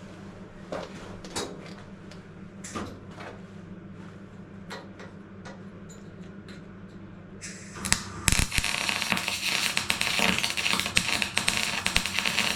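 A few light knocks and clicks of metal being handled. Then, about eight seconds in, a welding arc starts up on the steel sill panel and crackles loudly and steadily for about five seconds.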